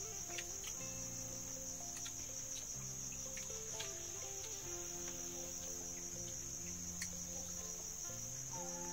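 Steady, high-pitched chorus of forest insects, unbroken, with a few light clicks.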